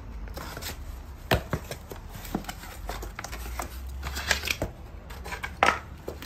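Utility knife slitting the packing tape on a cardboard box, and the cardboard flaps being pulled open: a string of short scrapes and knocks, the loudest about a second and a half in and near the end.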